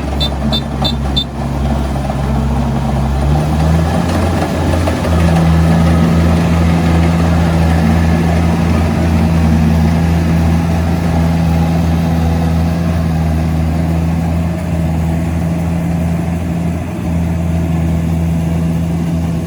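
An engine running steadily. It picks up speed about three and a half seconds in and then holds at the higher speed. A quick run of sharp high clicks sounds in the first second or so.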